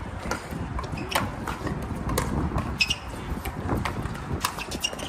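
Pickleball paddles striking a hard plastic ball in a doubles rally: a series of sharp pops at irregular intervals, roughly one every half second to second.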